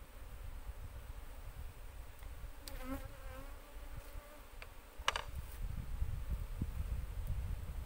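Asian honey bees (Apis cerana) buzzing around their exposed comb, with one bee's wavering buzz passing close about three seconds in. A sharp wooden knock about five seconds in, as a slat is set on the hive board.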